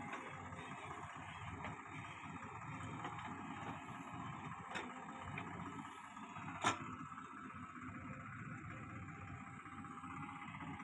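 JCB 3DX backhoe loader's diesel engine running steadily as the backhoe digs and swings, with a light click and then a single sharp knock about two-thirds of the way through as a load is dumped into the tractor trolley.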